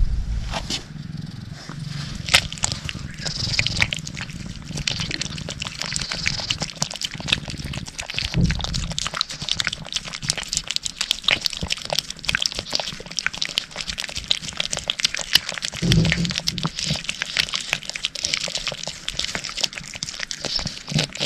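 A cat licking and smacking at a lickable purée treat (churu) close to the microphone: a fast, continuous run of small wet clicks and smacks. Two deeper, louder bumps come about two-fifths of the way in and three-quarters of the way in.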